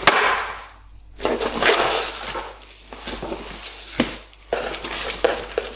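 Cardboard box and a woven wicker basket being handled and lifted out: scraping, crackling rustles in irregular bursts, with a sharp knock at the start and another about four seconds in.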